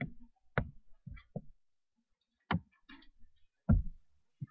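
Scattered clicks and soft knocks, with faint rustling between them, as a Bible is handled and its pages are turned on a wooden pulpit. The loudest knock comes about three-quarters through.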